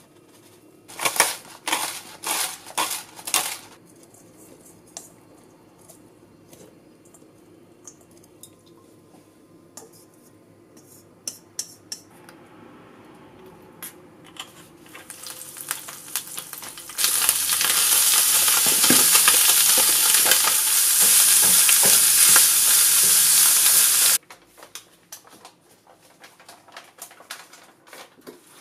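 Utensils clicking and tapping against a stainless steel mixing bowl as bean sprouts are tossed with seasoning. Then oil with ginger and garlic starts to sizzle in a frying pan and swells into a loud, steady frying sizzle that cuts off suddenly, followed by light taps of a utensil in the pan.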